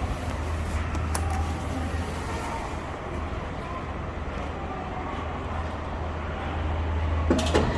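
Otis passenger elevator giving off a steady low machine hum, with a sharp click about a second in and a short knock near the end.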